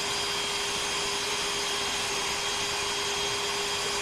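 Wood router motor on a CNC router table spinning at a steady speed with a constant high whine, not changing pitch or load.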